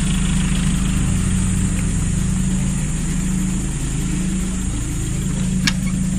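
A motor running steadily with a low, even hum, and a single short click about five and a half seconds in.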